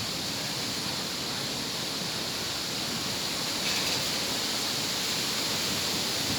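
Wind rushing steadily through trees, an even hiss with no gusts or breaks that grows a little louder a bit past halfway.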